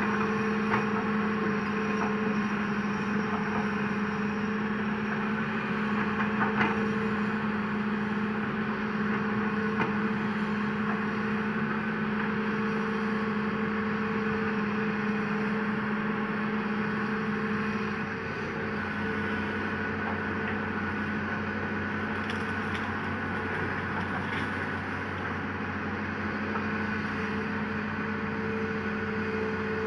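Hitachi Zaxis 200 hydraulic excavator's diesel engine running steadily under digging load, with a continuous hum. A few knocks and scrapes of rock and soil in the bucket come in the first third. The engine note drops slightly about two-thirds through.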